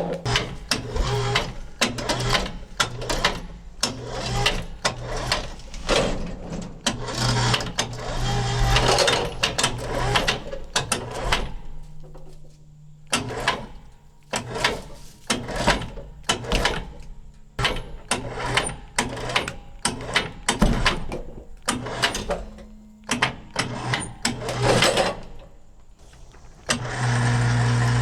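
A string of irregular knocks and clatters over a low engine hum. About a second before the end, an engine comes up loud and steady.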